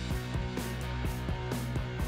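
Background music with a steady beat and changing pitched notes over a bass line.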